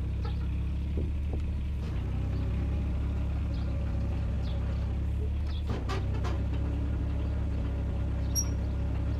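Takeuchi mini excavator's diesel engine running steadily while the raised track turns, with a few faint clicks and squeaks from the track near the middle. The squeak comes from a worn track wear pad and is muted because the track is damp.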